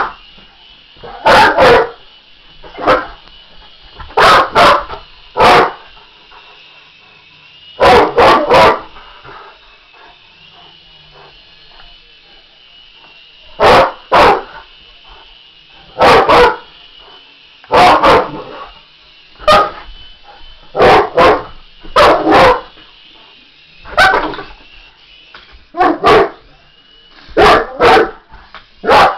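English Mastiff barking loudly and repeatedly, singly or two or three barks at a time, every second or two with a few longer pauses.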